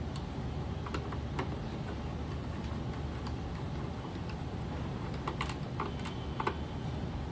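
Scattered small clicks and taps of a screwdriver and screws on the housing of a sharpy moving-head light as its cover screws are taken out, over a steady low hum.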